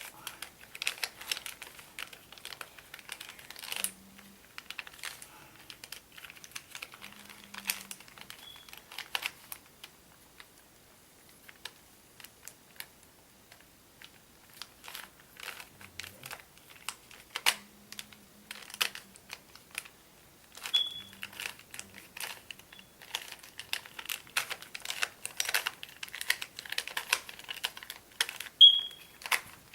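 Plastic Rubik's Cube layers being turned by hand: quick, irregular clicking in flurries, with a lull of a few seconds in the middle.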